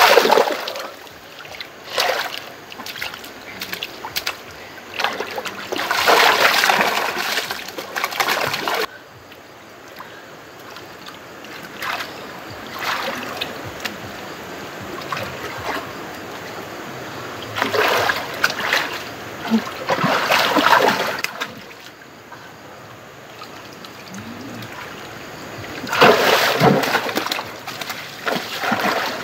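Hands and legs splashing and churning shallow muddy stream water while a person wades and gropes along the bank by hand for fish. The splashing comes in repeated bursts of a few seconds, with quieter stretches between.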